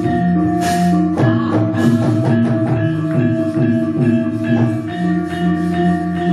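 Javanese gamelan playing: metallophones hold ringing notes while a quick run of sharp percussive strikes comes in about a second in, with another run a little past the middle.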